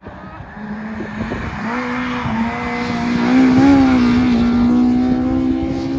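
Classic touring race cars' engines held at high revs on the starting grid, a steady engine note that grows louder and wavers slightly as the drivers blip the throttle while waiting for the start.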